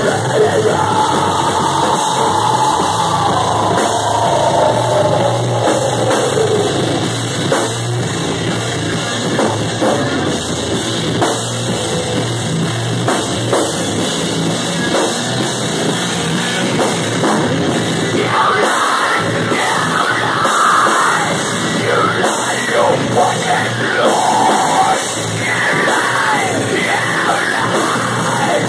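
Live rock band playing loud on drums and amplified instruments, with a voice singing over it at the start and again in the second half.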